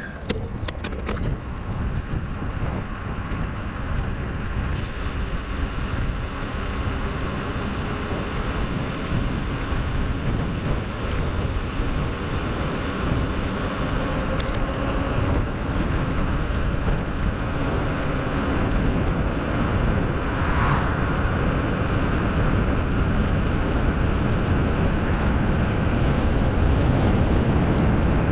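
Wind noise buffeting the microphone of a camera mounted on a moving bicycle, mixed with tyre noise on asphalt, a steady rushing that grows slowly louder.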